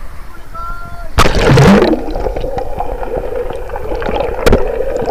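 River water splashing loudly as the camera plunges in about a second in. The water then gurgles and rushes, muffled by the camera being under the surface, over a steady hum, with a sharp knock near the end.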